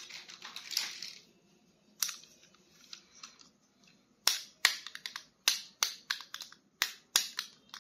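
Plastic toys and packaging handled by hand: a short crinkle and rustle at the start, then sharp plastic clicks and snaps, two or three a second, from about four seconds in.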